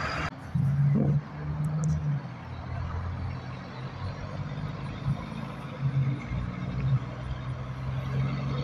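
Diesel semi-truck engine running on the road, a steady low drone that swells louder about a second in and again briefly near the end.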